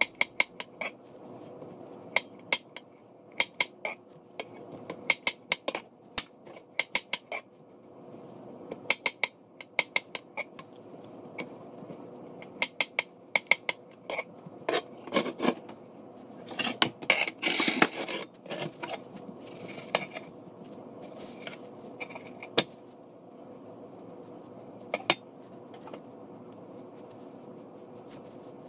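Kitchen knife striking a cutting board in quick runs of sharp clicks as canned peach halves are chopped into cubes, with a short scraping stretch about two-thirds of the way in. The chopping thins out to a few single taps near the end.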